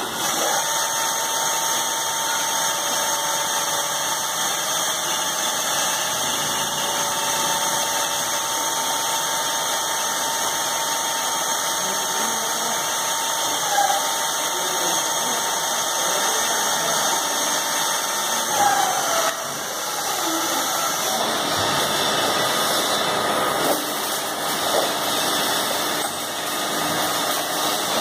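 Linear drilling special-purpose machine running with a steady motor whine. About two-thirds of the way in, the whine drops in pitch and stops, and the machine noise turns rougher with a few knocks.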